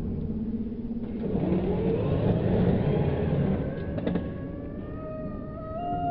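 Radio-controlled dune buggy driving past, its motor revving up and down, loudest in the middle. Near the end a steady high tone begins.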